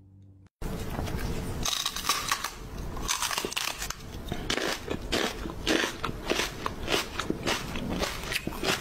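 Crunchy food being chewed close to the microphone: fast, irregular crunches and crackles that start suddenly about half a second in and keep going.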